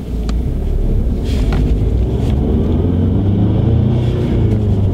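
2015 EcoBoost Mustang's turbocharged four-cylinder engine pulling hard under a launch, heard from inside the cabin, its pitch climbing as the revs rise. A few short clicks are heard along the way.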